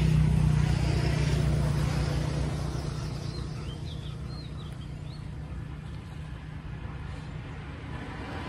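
A motor engine's steady drone, loudest at the start and fading away over the next few seconds, with a few short bird chirps around the middle.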